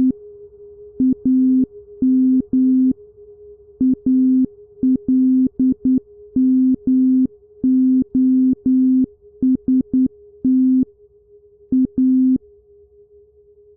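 Synthesized electronic sound effect: a steady hum-like tone under loud, buzzy, lower-pitched beeps that switch on and off in an irregular pattern of short blips and longer tones, like a coded signal. The beeping stops about twelve seconds in, leaving the steady tone alone.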